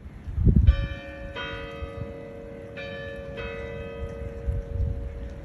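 Bells struck in two pairs, a higher stroke then a lower one each time, each note ringing on and fading slowly. Low wind buffeting on the microphone runs under them and is loudest about half a second in.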